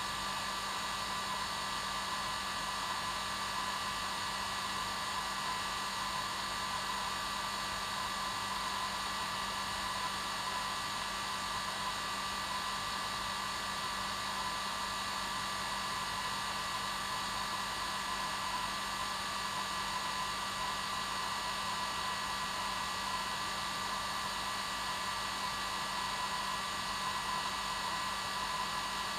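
Hair dryer running steadily on its normal setting: an even whoosh of air with a steady motor hum and whine.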